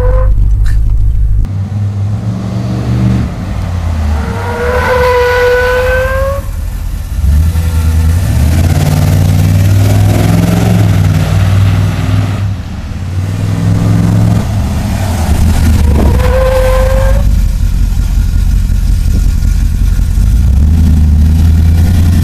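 Lifted Dodge Ram pickup driving on a street, its engine revving up and down through repeated runs and stops. Twice, about 5 and 16 seconds in, a short squeal rises slightly in pitch as hard braking slides the rear tyres.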